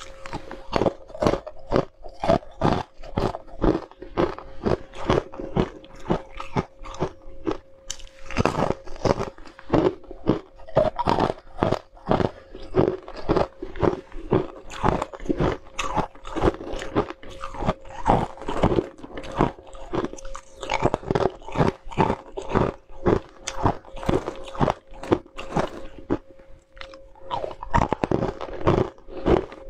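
Ice shards being bitten and chewed, a continuous run of crisp crunches about two or three a second.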